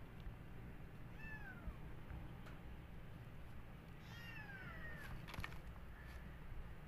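Kitten meowing twice: two high calls that each fall in pitch, the second one longer.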